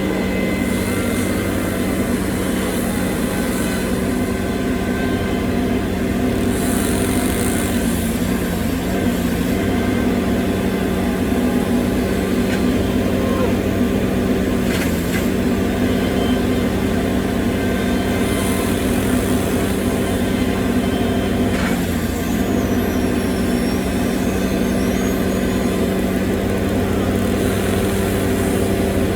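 Heavy machine's engine running steadily at working speed. Its pitch dips briefly three times as it takes load. A high hiss comes and goes several times.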